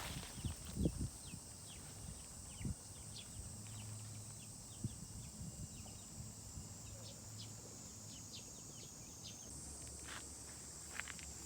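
Birds chirping in short, high, scattered calls over a steady high hiss, with a few soft knocks in the first second or so.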